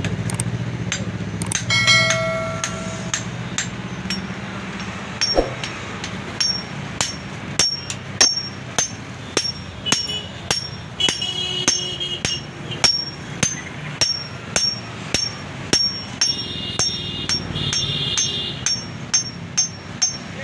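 Hand hammer striking the iron blade of a dao (cutter knife) on a small anvil, reshaping it: sharp metallic blows, sparse at first and then steady at about two a second, each with a short ring. A low hum fades over the first few seconds, and a few brief ringing tones are mixed in.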